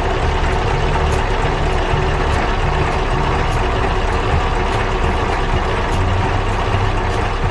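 Heavy truck engine running steadily with a deep, low rumble, as the loaded dump truck drives along.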